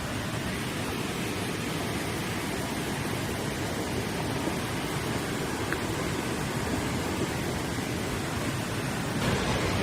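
Steady rushing noise of fast-moving floodwater, getting a little louder near the end.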